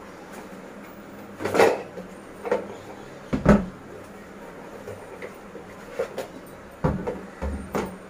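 A cardboard box being opened and a plastic chopper bowl lifted out: a run of separate scrapes and knocks of cardboard and plastic. The loudest is a dull thump about three and a half seconds in, and a cluster of knocks comes near the end.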